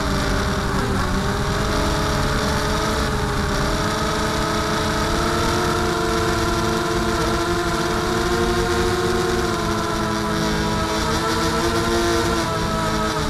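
Mini FPV quadcopter's electric motors and propellers whining in flight, recorded by its onboard camera. Several tones move together: they drop in pitch about a second in as the throttle eases, then rise again and hold with small swings, dipping once more near the end.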